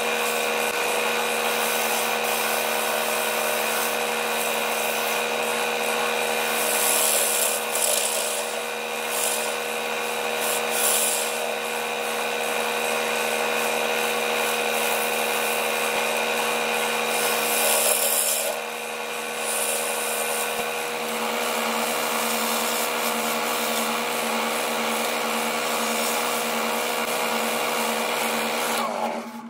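Grizzly wood lathe running with a steady motor hum while a bowl gouge cuts the spinning walnut bowl blank, the hiss of the cut swelling and easing several times. In the last third the hum takes on a rhythmic pulsing, and the sound drops off suddenly at the very end.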